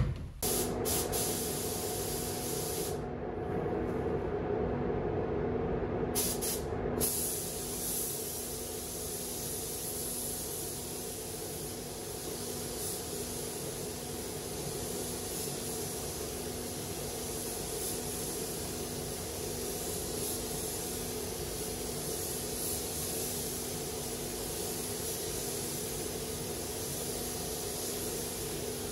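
Gravity-feed spray gun hissing as it sprays a white-light-grey ground coat onto a van door, over a steady hum. The gun's hiss breaks off twice within the first several seconds, then runs on steadily.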